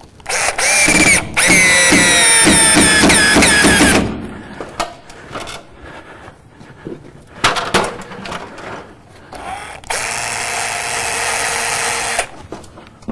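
Power drill driving screws into the sauna's roof dust cover: a short spin, then a longer run whose motor pitch sags and recovers as the screw bites, and a second steady run near the end, with a few handling clicks in between.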